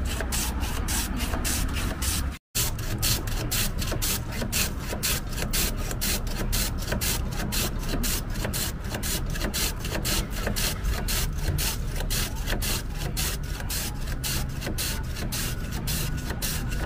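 Block of ice shaved by hand on a wooden ice plane: the ice is rubbed back and forth over the blade in quick, even rasping strokes, about four a second. The sound cuts out for an instant about two and a half seconds in.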